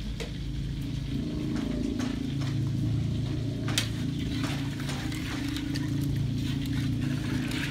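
A spoon stirring a meat stew in a large metal cooking pot, with scattered clinks and scrapes against the pot, over a steady low hum.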